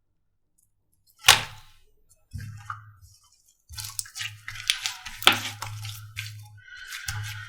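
Slime being squished and poked by hand. A sharp pop comes about a second in, then bursts of wet squishing and crackling.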